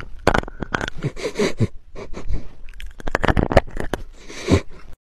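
A dog sniffing and snuffling at a small microphone held right to its nose, heard close up through that microphone as a quick run of sniffs and scrapes. It cuts off suddenly near the end.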